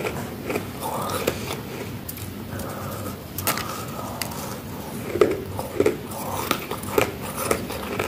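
Person biting and chewing crispy, soft freezer frost: a run of irregular sharp crunches and crackles, loudest and most frequent in the second half.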